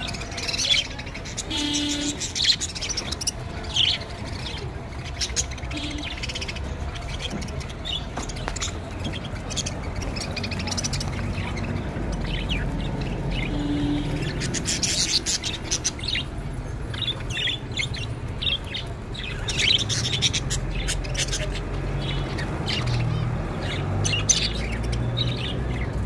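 A flock of budgerigars chattering, with many short high chirps and quick warbling trills overlapping throughout, over a low steady rumble.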